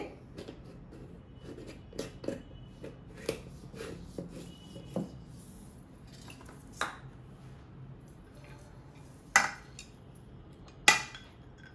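Small clicks and knocks of kitchen containers: a glass jar's lid being screwed on and jars being moved on a wooden table. Two sharper clinks with a short ring come near the end.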